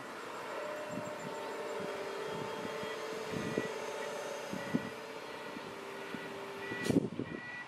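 Doosan DX225LCA crawler excavator working at a distance: its diesel engine running under load with a steady hum and a hydraulic whine as the boom lifts. A sharp knock about seven seconds in.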